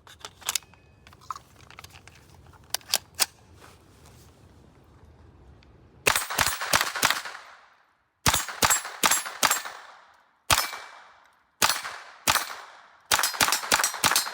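A few light clicks, then from about six seconds in, five quick strings of .22 LR gunshots from an AR pistol with a CMMG .22 LR conversion kit and a binary trigger. Each string is two to five rapid sharp cracks with a short ringing tail, separated by about a second of quiet.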